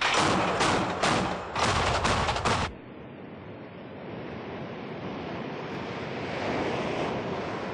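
Rapid live-fire gunfire, a quick string of loud shots for nearly three seconds that cuts off abruptly. It is followed by a steady rushing noise that swells a little near the end.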